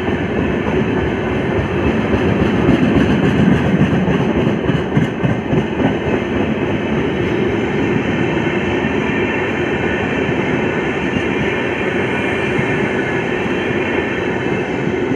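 Express passenger train's coaches passing close at speed: a steady, loud rumble of wheels running over the rails.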